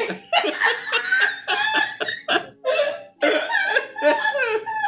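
People laughing hard in fits, in short, pitched bursts of laughter with a brief pause about three seconds in.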